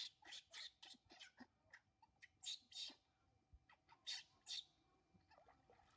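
Baby macaques squealing in short, high-pitched cries: a quick run of about three a second at first, then two louder pairs, the first about two and a half seconds in and the second about four seconds in.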